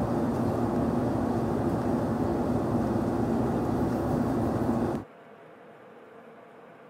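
A steady droning rush of noise with a low hum that cuts off abruptly about five seconds in, leaving only faint room tone.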